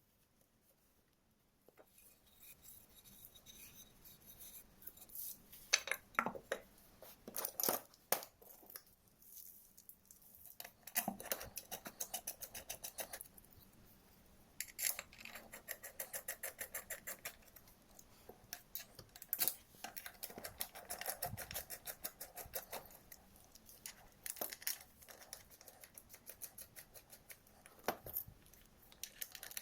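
Metal hand tools and engine parts being handled, with runs of rapid clicking and scraping strokes.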